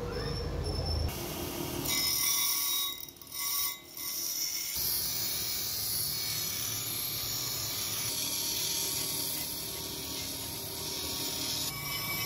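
A small steel knife blade ground against a bench grinder's abrasive wheel, shaping the blade: a steady high grinding hiss. It breaks off briefly twice a few seconds in, as the blade comes off the wheel.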